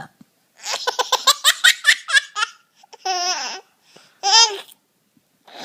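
Baby laughing: a quick run of laughs lasting about two seconds, then two short high-pitched squeals about a second apart.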